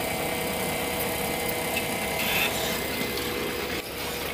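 Excavator's diesel engine running steadily, with a short rise in level about halfway through.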